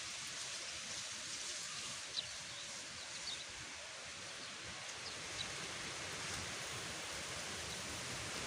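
Steady outdoor background hiss, with a few faint, short high-pitched sounds about two, three and five seconds in.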